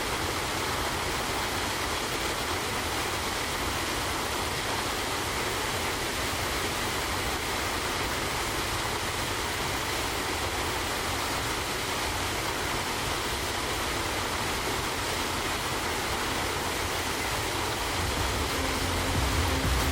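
Steady rushing roar of a waterfall pouring into a creek, even and unbroken, with a deeper rumble swelling near the end.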